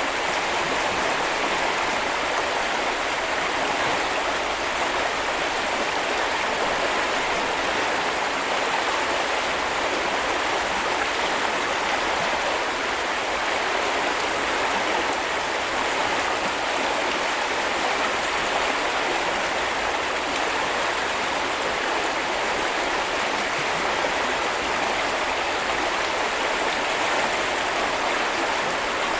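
A small river or brook running over stones, a steady rushing and babbling of water.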